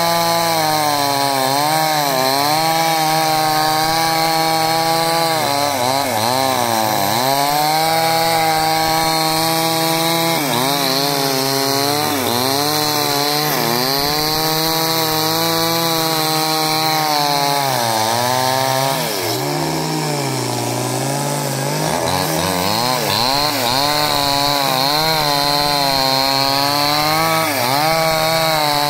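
Two-stroke chainsaw running at full throttle, ripping lengthwise through a log of very hard wood. The engine pitch sags and recovers every few seconds as the chain bogs under load in the cut, with a longer, deeper dip about two-thirds of the way through.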